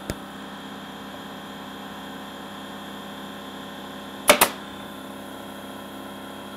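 Pneumatic micro pin nailer firing a pin into small trim moulding: one sharp double crack about four seconds in, after a faint click at the start, over a faint steady hum.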